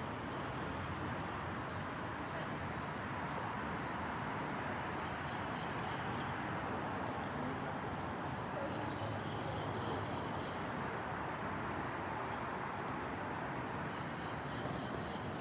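Steady background noise of a railway station platform with no train passing.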